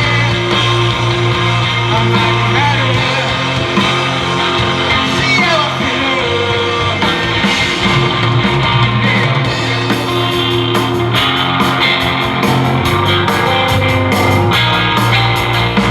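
Rock band playing live with electric guitars, bass and drums. About ten seconds in, the cymbals come in harder and busier.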